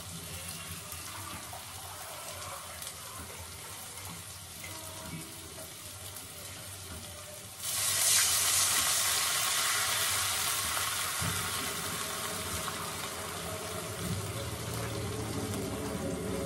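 Vegetables frying quietly in a hot kadai; about eight seconds in, a bowl of water is poured in for upma and the hot pan gives a sudden loud hiss that slowly fades into a steady sizzling bubble.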